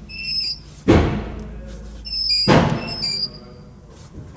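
Front brake of a BMW 1 Series 116i squealing in two short, high-pitched bursts while the car is manoeuvred slowly with the wheels steered. Robin suspects the brake's metal shields. Two heavy thuds also sound, about a second in and again at two and a half seconds.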